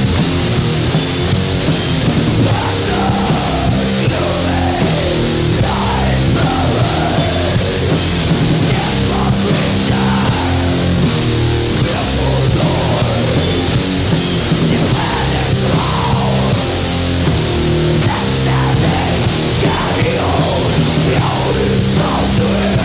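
Heavy metal band recording: loud distorted electric guitar and bass playing continuously, with pitches sliding in the guitar's mid range.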